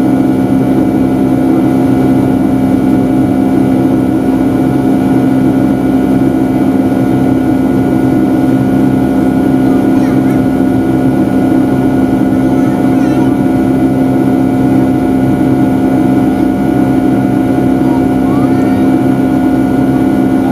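Boeing 757's Rolls-Royce RB211 engines heard from inside the cabin during the climb: a loud, steady drone with a strong low hum and several constant tones over it.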